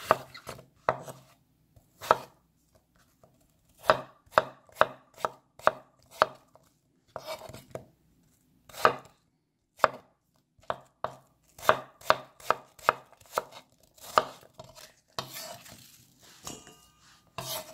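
Kitchen knife cutting a crisp apple into small pieces on a wooden cutting board: a string of sharp knocks as the blade goes through and strikes the board, irregular and often in quick runs of two or three a second, with a few short scraping stretches between.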